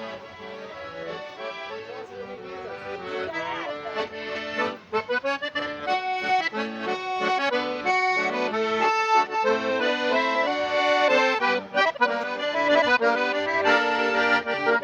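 Accordion music playing chords and a melody, quieter at first and louder from about five seconds in.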